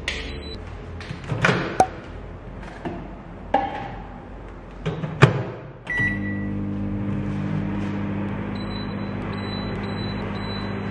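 A few sharp knocks and clicks of things being handled, then a microwave oven beeps and starts up with a steady low hum about six seconds in. Short high beeps follow near the end as an induction cooktop's touch buttons are pressed.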